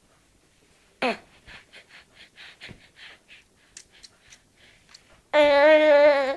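A baby makes soft, quick mouth and breathing noises while sucking a pacifier, about three a second, after a brief falling squeak about a second in. Near the end a loud, steady voiced note is held for about a second.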